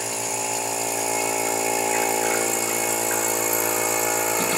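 Electric vacuum pump running with a steady hum, pulling vacuum on a vacuum press so the silicone membrane stays drawn down tight over a block.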